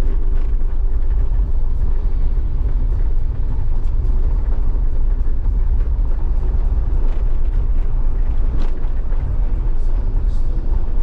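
Steady low rumble of a Jeep driving a dirt road in a sandstorm: engine, tyre and wind noise mixed together.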